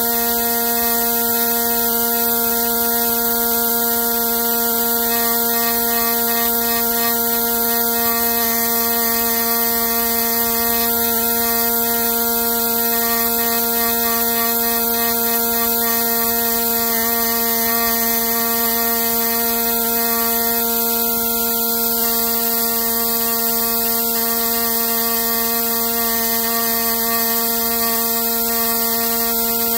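Steady electric buzz at one fixed pitch with a high hiss over it, unchanging throughout.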